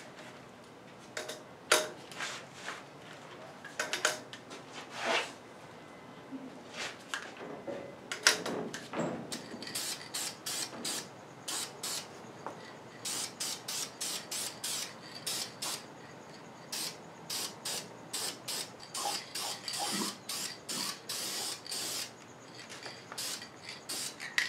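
A few sharp metal clicks and knocks from tool work on the engine, then an aerosol spray can of clear coat hissing in many short bursts, about one or two a second.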